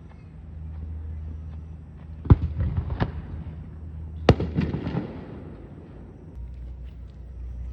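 Aerial fireworks shells bursting: three sharp bangs, the third and loudest about four seconds in, each followed by a spatter of smaller crackles.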